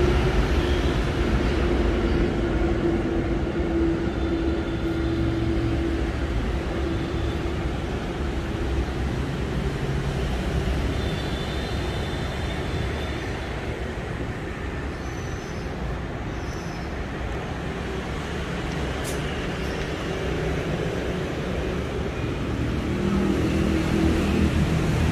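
Motor vehicle running: a steady low engine and road rumble, with a faint held tone in the first ten seconds or so that fades away.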